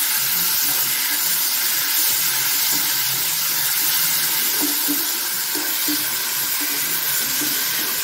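Onions, garlic and boiled moringa drumstick pulp sizzling steadily in hot oil in a kadai while a metal spatula stirs them.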